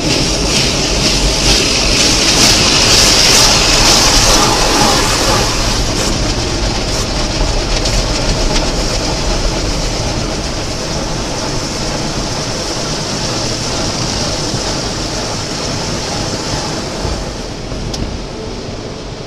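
Automatic car wash machinery running: a steady rushing hiss over a low rumble, loudest a few seconds in and slowly easing off.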